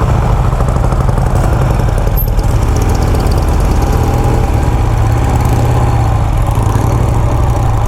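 Motorcycle engine running steadily, heard up close from the bike, with a constant low engine note.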